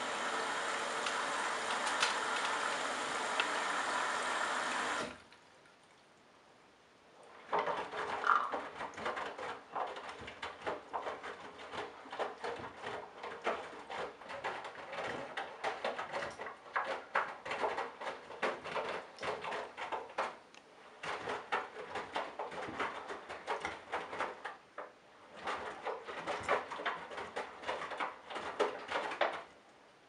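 Candy GrandO Simply-Fi front-loading washing machine during its wash: a steady rush of water for about five seconds cuts off suddenly. After a short pause the drum turns, sloshing and splashing the wet laundry, and it pauses briefly near the end before turning again.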